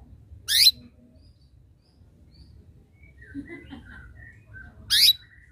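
Domestic canary giving two short, loud, sharply rising chirp calls, one about half a second in and one near the end, with faint soft twitters between them. These are the calls meant to challenge a rival canary into singing.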